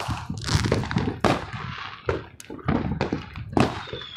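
Fireworks and firecrackers going off: an irregular string of sharp bangs and cracks, about two a second, near and farther off, each trailing off in echo.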